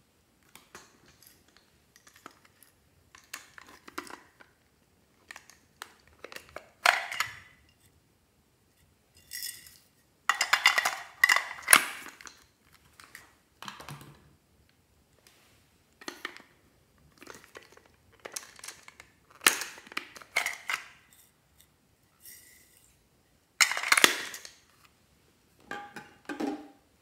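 Small handfuls of glitter, sequins and foam beads sprinkled onto slime in a glass baking dish: about a dozen short rustling, pattering bursts a second or two apart.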